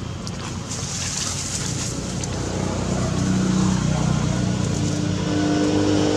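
A motor vehicle's engine running with a steady hum that grows gradually louder, as if it is approaching.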